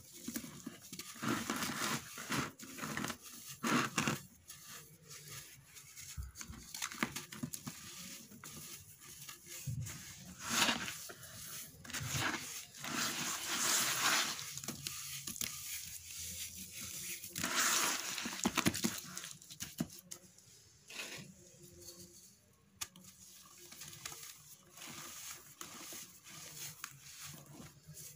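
Hands crushing wet sand-and-cement balls, which crumble into grit with an irregular gritty crunching and crackling. The loudest stretches of crumbling come about ten, fourteen and eighteen seconds in.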